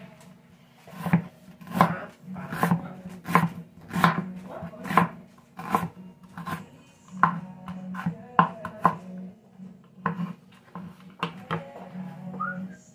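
Kitchen knife slicing a white onion on a wooden cutting board: a slow series of sharp knife strikes on the board, a bit more than one a second, over a steady low hum.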